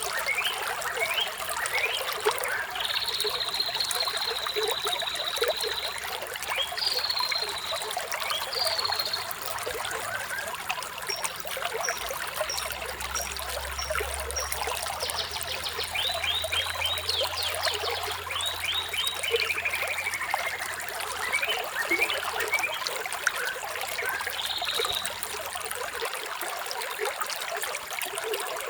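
Running water trickling steadily, with birds singing over it: a long high whistled note a few seconds in, a run of short high notes, then fast down-slurred notes ending in a falling trill.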